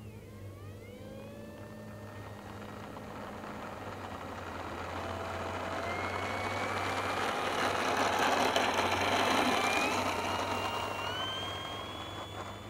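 Electric RC P-51D Mustang's brushless motor and propeller whining, rising in pitch in steps as the throttle comes up on the takeoff roll. It grows louder to a peak about eight seconds in as the model passes close, then fades, over a steady low hum.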